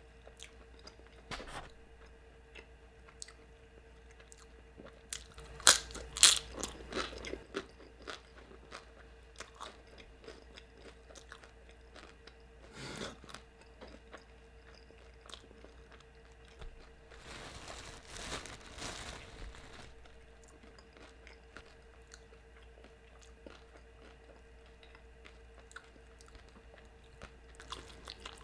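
Biting into and chewing a crispy quesabirria taco, with loud crunching bites about six seconds in, more crunching around halfway and later, and scattered small chewing clicks in between. A faint steady hum runs underneath.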